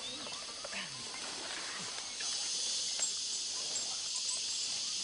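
A dense, steady high chirring of night insects, which gets louder about two seconds in, with a few faint scattered calls underneath.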